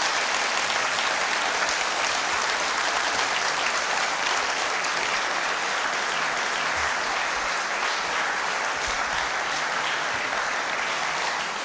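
Large audience applauding, many people clapping together in a steady, dense wash of claps that holds level and drops away at the very end.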